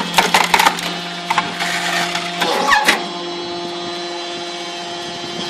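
Timberwolf TW7 log splitter working. Its Honda 18-horsepower twin-cylinder engine and hydraulics hum steadily while wood cracks and snaps as a log is forced through the box wedge in the first second or so. About halfway through there is a short gliding sound, and the pitch of the hum shifts and holds steady after it.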